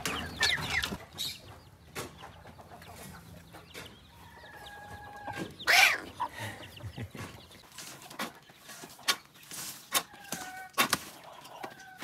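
Chickens clucking, with a few long, level calls and one loud, short squawk about six seconds in. A few sharp clicks come near the end.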